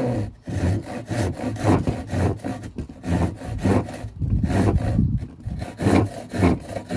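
Hand saw cutting through a wooden batten, in repeated back-and-forth strokes at about two a second.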